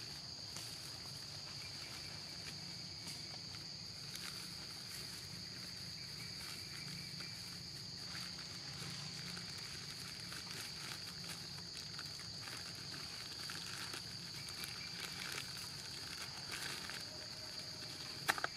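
Steady high-pitched insect drone that holds one pitch throughout, with a few faint rustles and one sharp click near the end.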